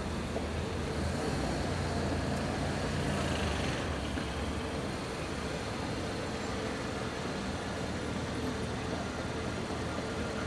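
Steady low rumble of motor vehicles in the street, even in level with no sudden events.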